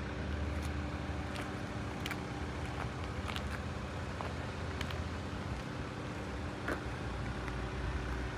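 Steady low mechanical hum with a low rumble and a few faint ticks.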